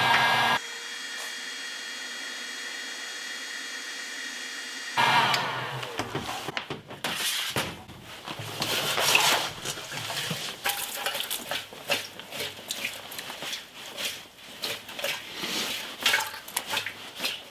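A steady whir for the first few seconds. Then icy slush and liquid vinegar slosh, clatter and knock irregularly as they are shaken and poured out of a steel motorcycle fuel tank.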